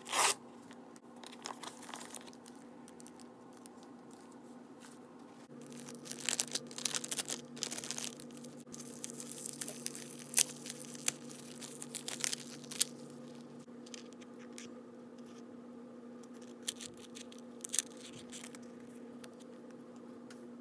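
Kraft-paper padded mailer torn open with a sharp rip at the start, then a small clear plastic bag crinkling and crackling in a long run as it is handled and opened, with a few last crinkles later. A faint steady hum sits underneath.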